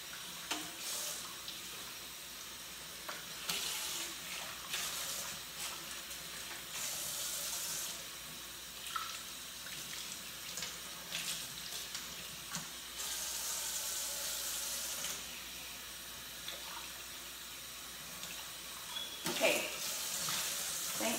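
Kitchen faucet running into a stainless steel sink as a wet wig is rinsed under the stream; the splashing swells louder several times as the hair is moved through the water.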